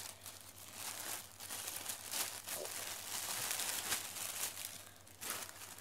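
Clear plastic bags wrapped around folded T-shirts crinkling and rustling as they are handled and opened. The crackles run on with a short lull about five seconds in, then one more burst.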